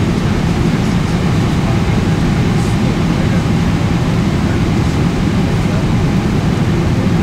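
Boeing 777-300ER cabin noise in flight: a steady, low rushing drone of the engines and air streaming past the fuselage, heard from an economy seat.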